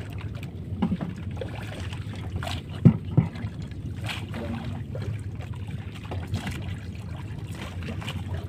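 A floating gill net being hauled in by hand over the side of a wooden outrigger fishing boat: water dripping and trickling off the net, with scattered knocks of net and gear against the hull, two louder knocks about three seconds in. A steady low motor hum runs underneath.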